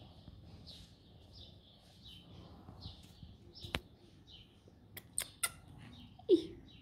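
Small birds chirping steadily in a quick, repeating run of short high chirps. A few sharp clicks come in the middle, and a short falling call sounds near the end.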